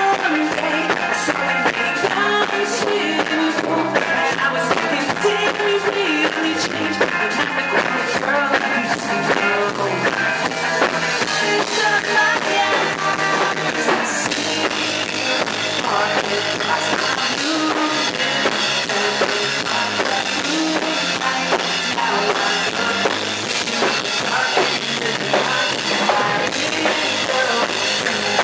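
Live rock band playing a song, with the drum kit and guitar prominent.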